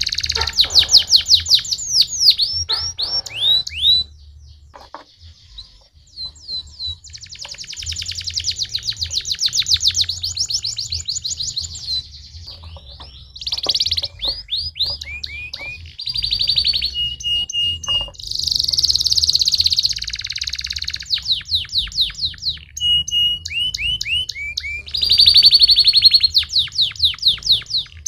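Domestic canary singing: long rolling trills of rapidly repeated sweeping notes, broken by short pauses, with a few brief steady whistled notes in the second half.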